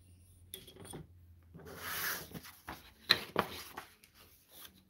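Sheets of paper sliding and rustling as they are gathered on a cutting mat, with a longer swish about two seconds in and a couple of light knocks a little after three seconds.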